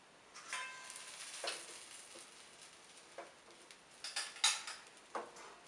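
A plastic spatula scraping and cutting through an egg fry in a non-stick frying pan, in several short strokes, the loudest about four seconds in, over a light sizzle of frying.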